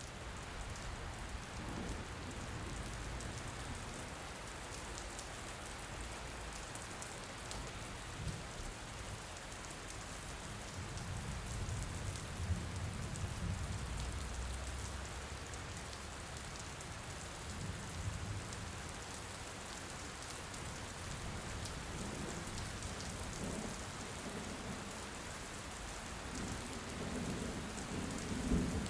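Heavy rain falling steadily, a dense even hiss of drops, with low rumbles of thunder swelling a couple of times, about midway and near the end.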